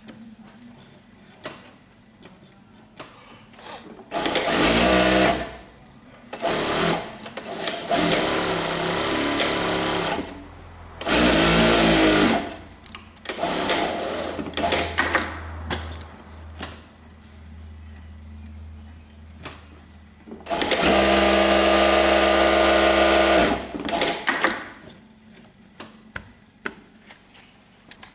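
Brother electric sewing machine stitching in several bursts of one to three seconds, with lighter clicks in the pauses between them. The longest and loudest burst comes about 21 seconds in and has a steady motor whine.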